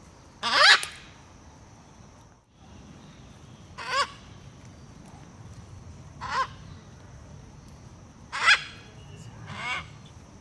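Macaw calling with short, harsh squawks: five in all, a couple of seconds apart, the first the loudest.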